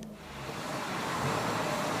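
A car driving by: a rush of tyre and air noise that swells over about the first second and then holds, with the engine note faint beneath it.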